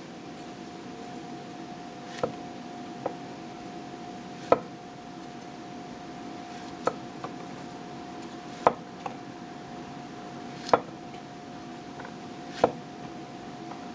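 Teruyasu Fujiwara chef's knife slicing through mushrooms and knocking on a wooden cutting board: about eight sharp, irregular knocks a second or two apart, over a steady background hum.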